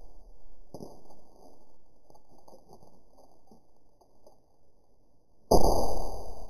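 Hammer striking a clear plastic audio cassette on a table: a light knock about a second in, small plastic clicks and rattles as the cassette is handled and stood on its edge, then one hard blow near the end with a ringing tone that fades over about a second.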